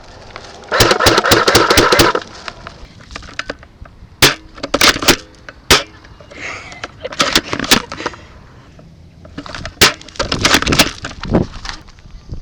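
Airsoft guns firing in quick bursts of sharp snapping cracks, several bursts with pauses between them; the densest run is about a second in.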